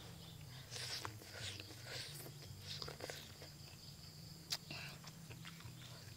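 Close-up eating sounds: soup broth sipped from a spoon and chewed, a string of soft slurps and mouth noises, with a single sharp click about four and a half seconds in.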